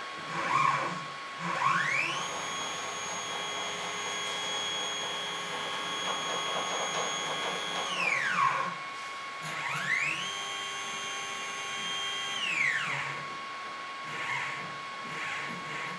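The drive motors of a DIY CNC quilting frame move the sewing-machine carriage into position in two jogs. Each time a whine rises in pitch as the carriage speeds up, holds steady, then falls away as it slows and stops. The first run lasts about six seconds and the second, starting about ten seconds in, is shorter.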